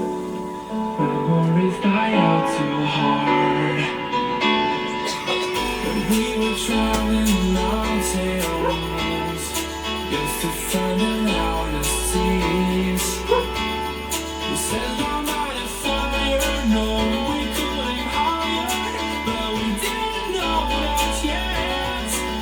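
Pop song with guitar playing through Bestisan SE07 and SW80 speakers as a sound test; a deep bass line comes in about five seconds in.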